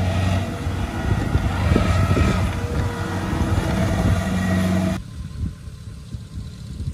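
Kubota DC-70 Plus combine harvester's diesel engine running steadily, a loud low hum with mechanical clatter over it. About five seconds in it drops suddenly to a much quieter low rumble.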